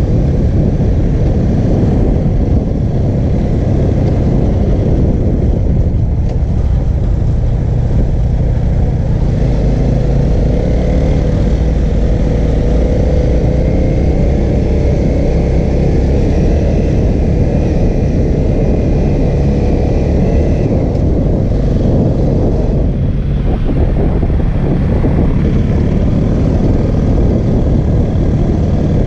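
Honda CRF250L's single-cylinder four-stroke engine running steadily while riding at trail speed, with a dense low rumble on the helmet-mounted camera's microphone.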